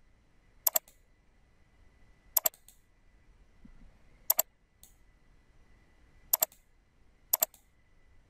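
Computer mouse button clicked five times, each click a quick press-and-release double tick, spaced about one to two seconds apart.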